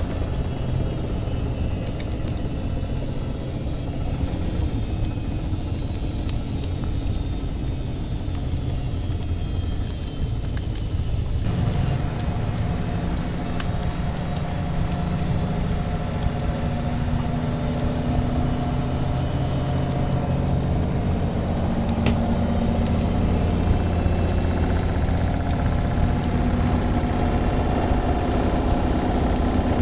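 A washing machine running, a steady low mechanical hum. About a third of the way in, the sound shifts as higher humming tones from the motor join in. Faint crackles of a wood fire come now and then.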